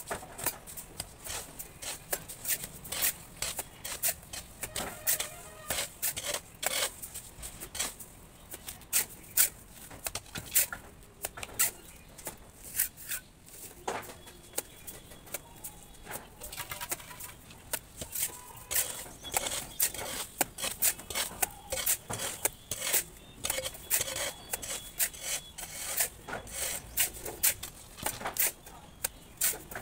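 Mason's steel trowel working cement-sand mortar onto a brick wall: a steady run of irregular sharp taps, scrapes and slaps as mortar is picked up, thrown on and worked in.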